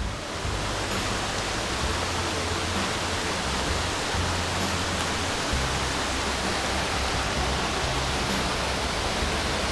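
Waterfall water rushing as a steady, even hiss.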